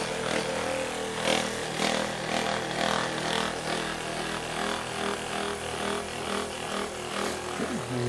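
Handheld percussion massage gun running while pressed against a person's back: a steady motor whine with a regular pulse about twice a second.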